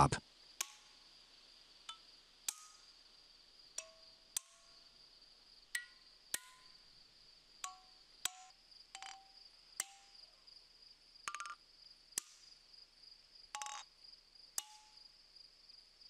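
A 2-pound hammer striking steel feathers and wedges set in a granite block, splitting the stone by the feather-and-wedge method. It gives sharp metallic taps about once a second, unevenly spaced, each with a brief ringing note that changes pitch from wedge to wedge. A steady high insect trill runs underneath.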